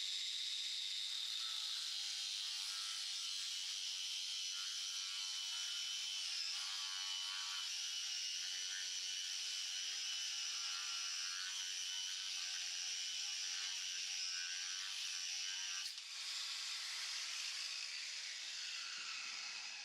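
Corded Bosch angle grinder with a new cut-off disc cutting through a 20 mm ShKh15 bearing-steel bar: a steady high whine with cutting noise. About 16 seconds in it is switched off and the disc winds down, falling in pitch.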